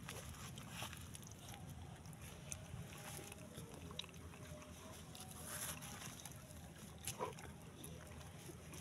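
Dog licking and nibbling at a rabbit's fur: faint wet mouth clicks and soft rustles over a quiet background, with a sharper click about seven seconds in.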